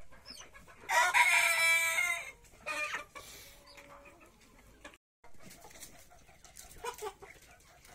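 Sonali chicken rooster crowing once for just over a second, followed by a few short clucks and calls from the chickens.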